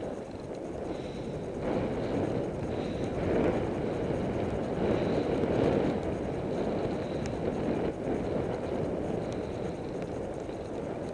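Wind noise on a cycling camera's foam-covered microphone at riding speed: a steady low rushing, without tones, that swells for a few seconds in the middle.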